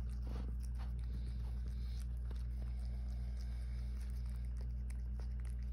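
Cat licking and chewing at a sandwich: scattered soft, wet clicks and smacks over a steady low hum.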